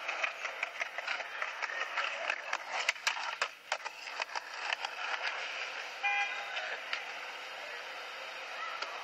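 Thin, hissy street noise from camcorder tape playback, with scattered clicks and a short horn-like tone about six seconds in.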